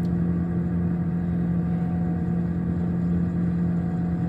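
Steady mechanical hum of a running commercial refrigerator, its compressor and fans droning evenly with a strong low tone.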